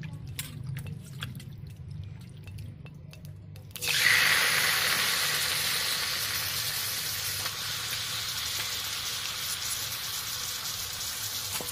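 Raw chicken pieces hitting hot oil in an iron kadai: about four seconds in a loud sizzle starts suddenly, then goes on steadily, slowly easing. Before it, only a few faint ticks.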